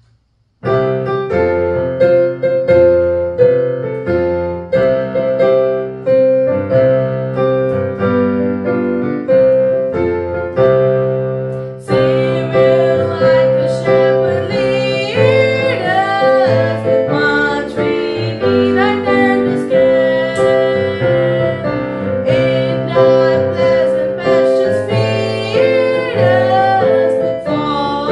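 Piano playing a hymn introduction; about twelve seconds in, a girl's solo voice comes in singing the hymn over the piano accompaniment.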